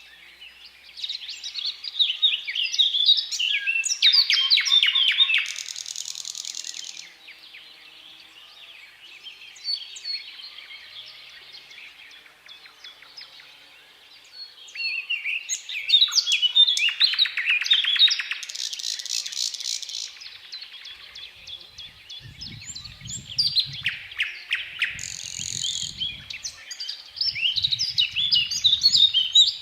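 Nightingale singing in separate loud phrases with pauses between them. The phrases mix fast rattling, clicking trills and clear whistled notes.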